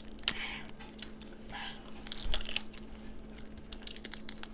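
Shells of boiled shrimp and king crab legs being cracked and peeled by hand: scattered sharp crackling clicks and crinkles.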